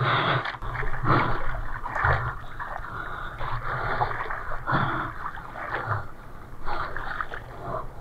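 Water splashing and rushing past a surfboard as a surfer paddles, in repeated surges with the arm strokes, picked up by an action camera mounted on the board.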